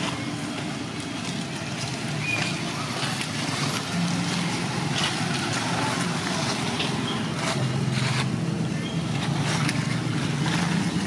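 A motor vehicle engine running steadily, its low hum shifting pitch a little now and then, with scattered crackles and rustles of dry leaves.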